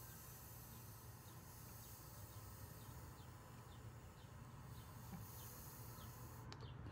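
Near silence: quiet room tone with faint, evenly repeated high chirps about twice a second, and a single small click near the end.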